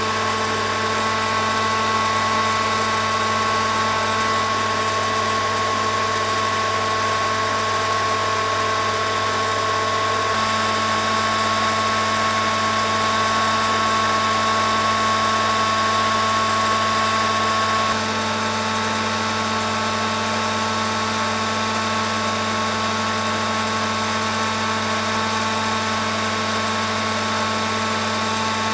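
Steady hum of a running motor-driven workshop machine, its pitch unchanging, with a slight shift in tone about ten seconds in and again near eighteen seconds.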